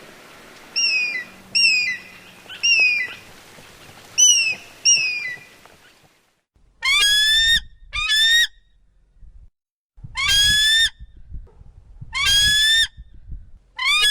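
An eagle giving a series of short, high, screeching calls, each falling in pitch, for about the first six seconds. After a short gap a different large bird takes over with about four longer calls that rise in pitch.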